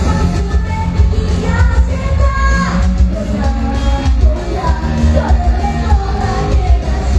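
A live band playing a pop-rock song with a singer's voice over it, heavy bass and drums, loud and continuous, echoing in a hall.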